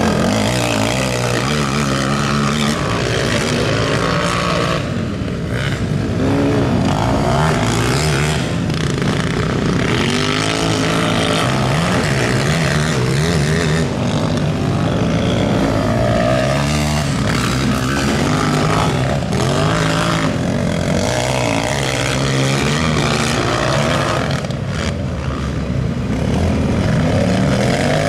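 Several racing quads with engines over 450 cc running hard on a dirt track, their engine notes rising and falling as the riders rev up, shift and back off, overlapping throughout.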